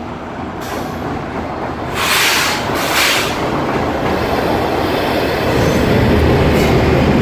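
Diesel locomotive and passenger coaches rolling into a station along the platform, the running noise growing louder. Two short, loud hissing bursts come about two and three seconds in, and a steady low engine drone sets in from about five seconds.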